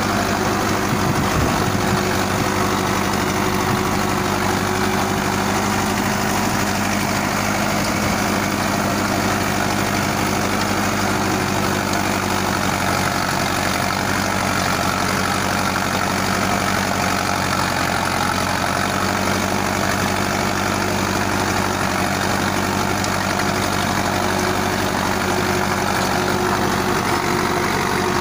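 Tractor's diesel engine running steadily as it pulls a heavy-duty 48-blade Gomadhi rotavator, whose spinning blades churn through the soil with a steady noisy rush over the engine's even drone.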